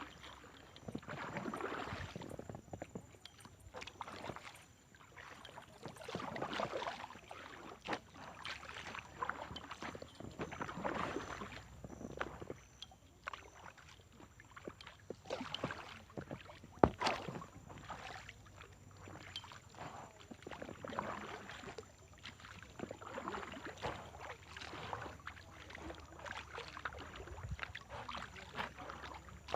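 Kayak paddle strokes in water, rhythmic swishes about one every couple of seconds, with one sharp knock about halfway through.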